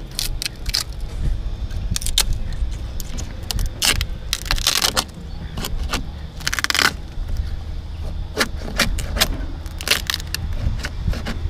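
Rotten timber in a wooden boat being dug out with a hand tool: irregular sharp clicks, cracks and knocks, with a couple of longer scrapes as the soft wood breaks away.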